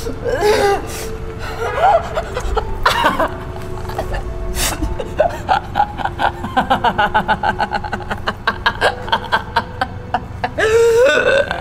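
A woman's voice laughing over a low, held musical drone: a few broken laughs and gasps, then a long rapid run of giggling partway through, and a louder outburst near the end.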